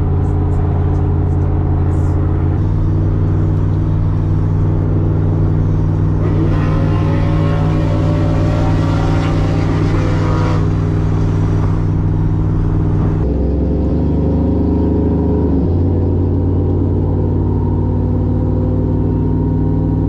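Cammed V8 pickup engine and exhaust droning steadily inside the cab at highway speed. Revs rise for several seconds in the middle, and the drone drops briefly in pitch later before settling back.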